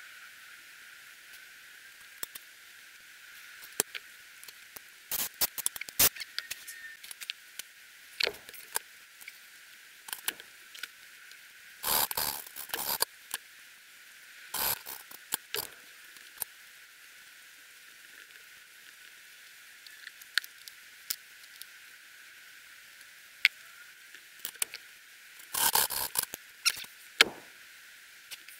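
A valve being lapped into its seat in a BSA A70L cylinder head with fine grinding paste: the lapping stick is worked back and forth, giving several short gritty scraping bursts, with scattered clicks and taps of metal parts between them.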